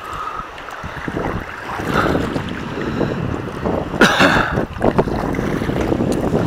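Paddle strokes in calm, shallow water: the blade dipping and splashing every second or two, loudest about four seconds in, with wind rumbling on the microphone.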